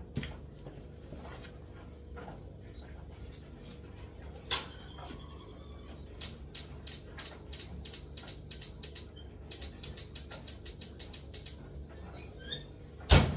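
Gas oven's spark igniter ticking in even runs of sharp clicks, first about three a second, then faster, as the oven is lit to preheat; a single loud knock near the end.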